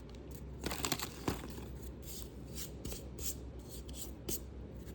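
Trading cards and pack wrapping being handled, rubbed and shuffled. A string of short scratchy strokes, busiest about a second in.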